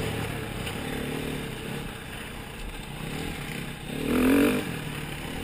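Dirt bike engine running on a trail, with a brief louder rev about four seconds in.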